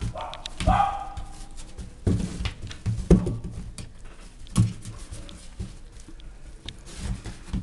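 English bulldog puppy giving short high-pitched cries in the first second, then several dull thumps as it is played with on the mat.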